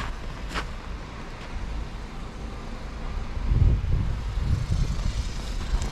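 Footsteps crunching in deep snow, two near the start, then a strong uneven low rumble from about three and a half seconds in.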